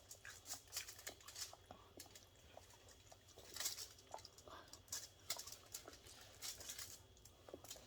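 Faint eating sounds: scattered soft clicks of chewing and lip smacking with light rustling.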